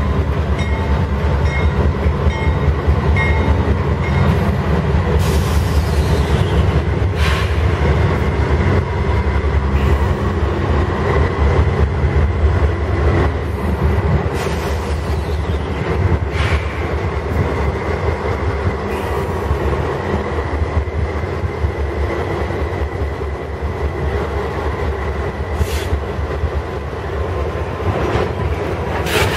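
Canadian Pacific diesel locomotives and loaded oil tank cars rolling slowly past, with a steady, loud low rumble. A thin, steady squeal runs through it, and there are scattered sharp clicks from the wheels on the rails.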